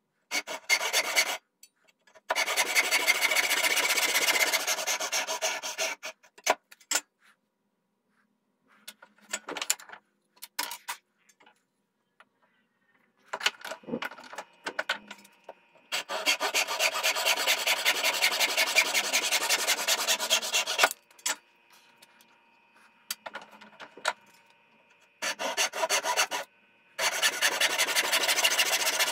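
A brass-backed crosscut backsaw cutting across a softwood board held in a bench vise. It comes in several spells of rapid, even strokes, the longest about five seconds, with pauses and a few light knocks in between.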